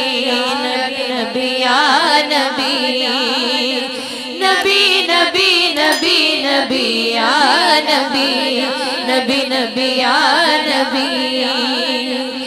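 A woman singing a naat in a long wordless melismatic passage with fast, wavering ornaments, over a steady held drone. The voice eases off briefly about four seconds in, then carries on.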